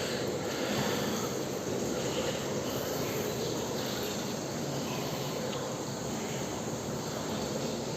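Steady mechanical running noise, a constant hum with hiss, unchanging throughout.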